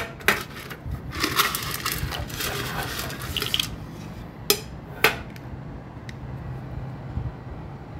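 Dishes and utensils clinking, with a rattling clatter lasting about two seconds and a few sharp knocks, as food for the cats is being made ready.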